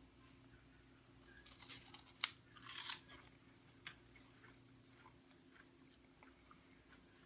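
Faint crunching of a crisp, hard corn snack being bitten and chewed, in a short cluster about two to three seconds in, then only a few faint ticks.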